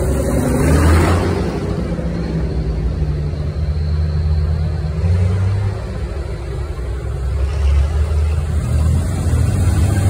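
Farm tractor engines running as the tractors drive past close by, one after another. A green John Deere tractor's engine comes up and passes close near the end.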